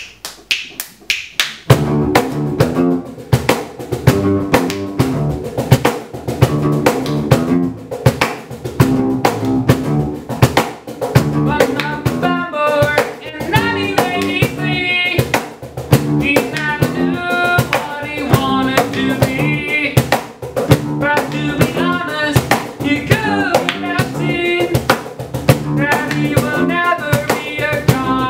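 A band playing an instrumental opening: a drum kit keeps a steady beat under electric guitar chords. A higher melody line enters about twelve seconds in.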